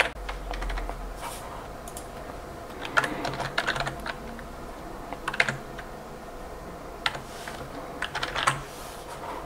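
Typing on a computer keyboard: scattered keystrokes, single and in quick little runs, with pauses between them, over a faint steady hum.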